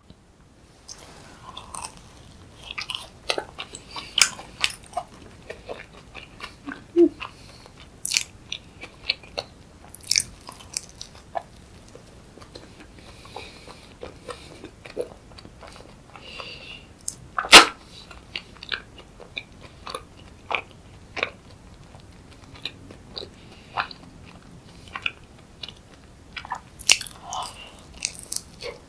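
A person biting into and chewing a handmade donut, with many small scattered clicks and crunches and one much louder sharp click a little past halfway.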